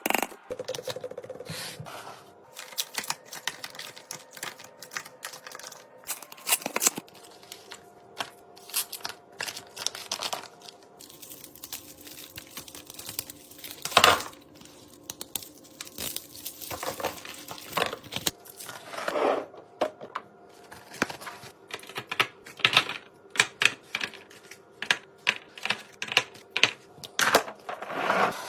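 Irregular sharp taps, clicks and clunks of containers and packages being handled and set down while restocking a fridge, with one louder knock about halfway through.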